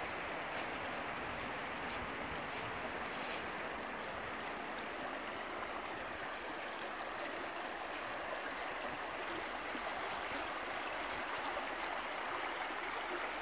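A shallow woodland stream rippling over stones and small riffles, a steady babble of running water.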